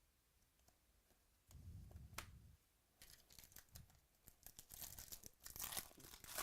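Foil card-pack wrapper being torn open and crinkled, a dense crackling rustle starting about three seconds in.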